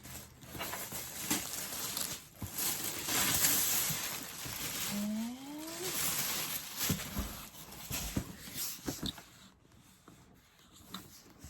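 Packaging being handled and opened: rustling and crinkling with scattered clicks and taps, quieter over the last couple of seconds. A short rising tone comes about five seconds in.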